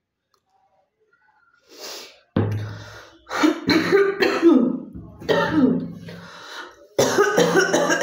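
A woman coughing, a genuine chesty cough that brings up phlegm. After a quick breath in about two seconds in, it comes in several fits of repeated coughs, each fit parted from the next by a short pause.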